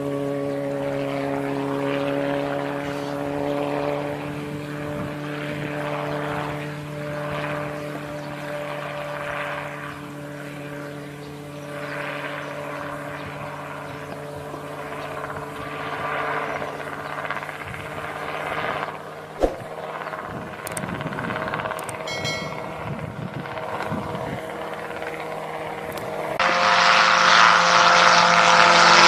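Engine and rotor of an ultralight single-seat homemade helicopter running steadily in flight. There is a single sharp click about two-thirds of the way in. Near the end the sound jumps louder and brighter.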